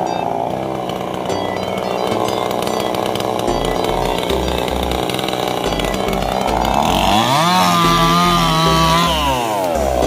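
Gasoline chainsaw revving up about seven seconds in, held at high speed for about two seconds, then dropping back. Background music with a pulsing bass beat plays throughout.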